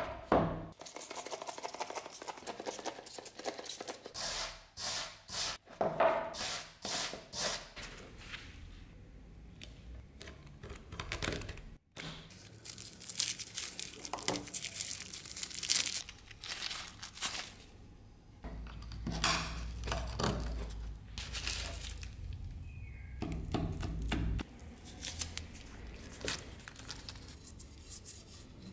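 Blue electrical tape and an orange wrapping being peeled and torn off a machete handle in repeated short rips, with crinkling of the loose scraps. A sharp knock right at the start as the machete is set down on the wooden workbench.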